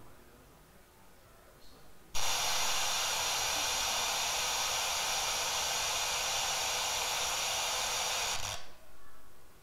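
Wideband FM static from an RTL-SDR receiver tuned between stations, with the squelch opened. A loud, even hiss cuts in suddenly about two seconds in and cuts off suddenly about a second before the end.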